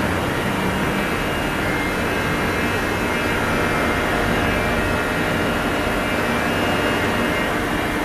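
Mitsui Seiki VT-3A vertical machining center running, a steady loud whir and hiss with a faint high tone and a low hum, and no breaks or knocks.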